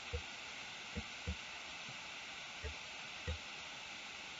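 Faint steady microphone hiss with about five soft, dull thuds spread unevenly through it, from the computer mouse being clicked and dragged on the desk.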